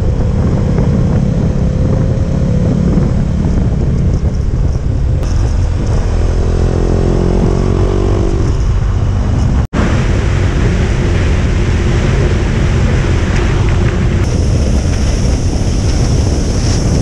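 Motorcycle on the move: engine running under heavy wind noise on the camera microphone, its pitch rising twice as it accelerates, with a brief dropout a little over halfway.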